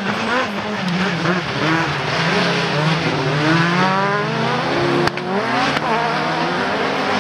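Super1600 rallycross cars, a Peugeot 207 and Renault Clios, racing flat out with their engines revving hard. Several engine notes rise and fall through the gears and overlap, with one long rising rev about halfway through. There is a sharp break about five seconds in.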